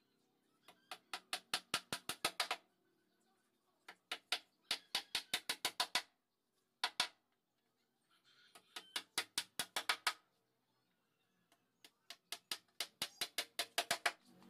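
Hammer driving small nails into a plywood speaker-box panel: four runs of quick taps, about five a second, each run building to harder blows, with one lone strike between the second and third runs.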